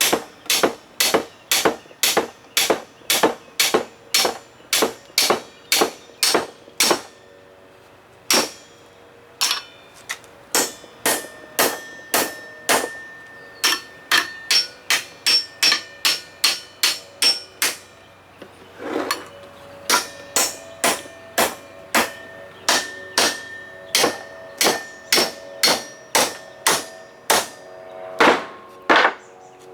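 Steel hammer striking metal, about two blows a second in runs with brief pauses, the later blows leaving a ringing tone: knocking at seized, corroded screws on an outboard's tilt and trim pump.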